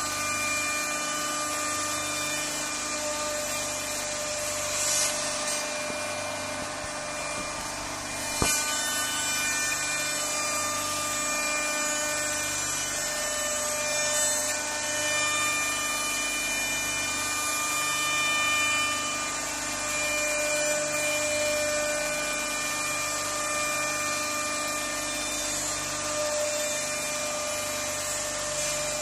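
ATC CNC wood router's spindle running with a steady high whine as its bit cuts into a wooden door panel, with a hiss of cutting noise under it. A single sharp click comes about eight seconds in.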